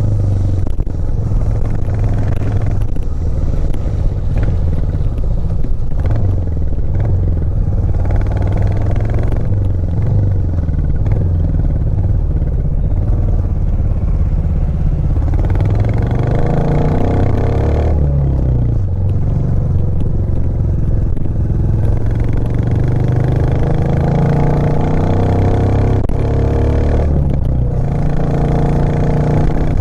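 Royal Enfield Classic 350's single-cylinder 349 cc engine running under way, its note rising and falling with the throttle, with one clear climb and drop in pitch about halfway through.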